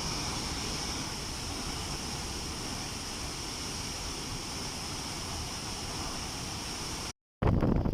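Steady rushing of a waterfall. About seven seconds in it cuts off for a moment of silence, then wind buffets the microphone with a rough low rumble.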